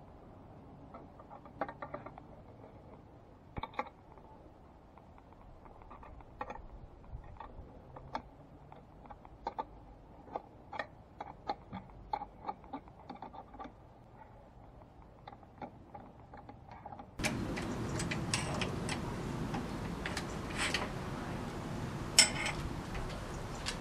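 Spanner working the nuts and U-bolts on an aluminium chainsaw mill frame while they are slackened to lower the guide bar: many irregular small metallic clicks and taps. About seventeen seconds in, a steady louder hiss sets in suddenly; the clicks go on under it, with one sharper knock near the end.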